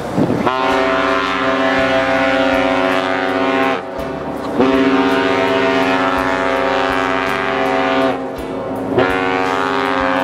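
Great Lakes freighter's horn sounding long blasts of a steady, many-toned chord: a first blast of about three seconds, a second after a short break, and a third starting near the end, each bending slightly in pitch as it starts and stops.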